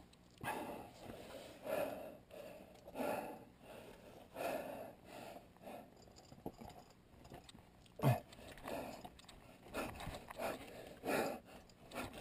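A climber breathing heavily and rhythmically close to the microphone, one loud breath about every second and a half. There is a sharp knock about eight seconds in.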